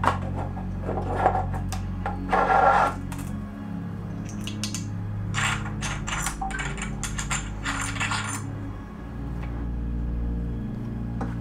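Light metallic clinks and rattles of small metal parts being handled, in a cluster about two and a half seconds in and a denser run in the middle, over steady soft background music.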